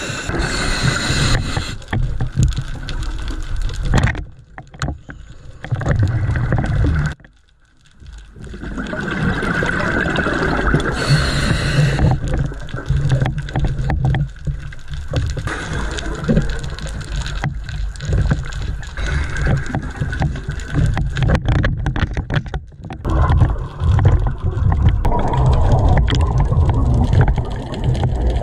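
Scuba diver breathing through a regulator underwater: rumbling rushes of exhaled bubbles alternating with hissing inhales, with short pauses in the breathing about four and eight seconds in.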